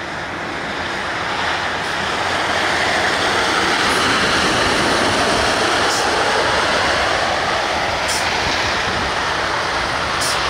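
Snowplow truck passing with its front blade down, a loud rushing scrape of the plow pushing snow and slush along the road together with engine and tyre noise. It builds over the first few seconds as the truck comes near, then holds loud.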